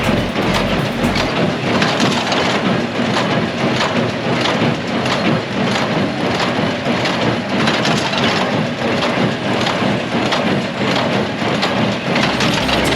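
Hay baler at work, a dense crunching, clattering noise with repeated sharp strokes as hay is packed.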